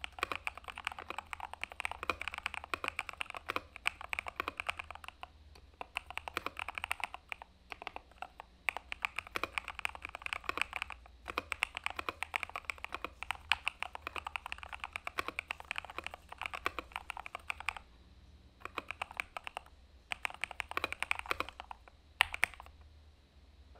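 Typing on a mechanical keyboard fitted with thick PBT dye-sublimated keycaps: fast runs of keystrokes broken by short pauses, stopping about a second before the end.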